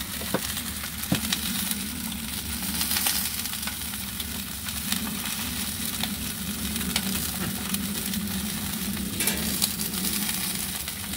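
Salmon fillets searing in a cast iron skillet, with asparagus frying in a pan beside it: a steady sizzle broken by small crackling pops, over a low steady hum.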